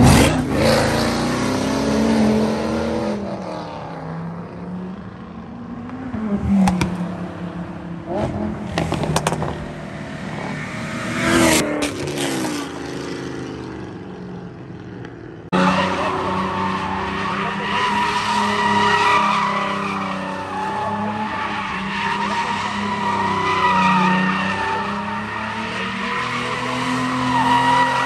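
Car engines revving and accelerating past, their pitch rising and falling in several surges. About halfway through, after a sudden change, a car's tyres squeal steadily and waver as it slides sideways in a burnout or drift, with its engine running underneath.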